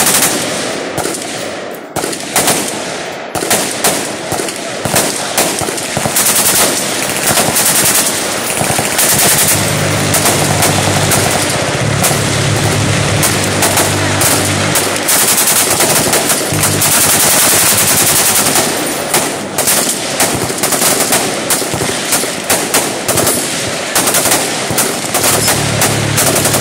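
M240 7.62 mm belt-fed machine gun firing bursts of automatic fire, one burst after another with short pauses between.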